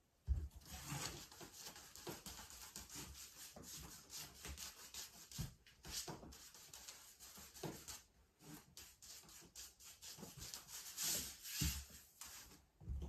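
Paint being rubbed and scrubbed onto a large canvas by hand in quick, irregular scraping strokes, with a low thump right at the start.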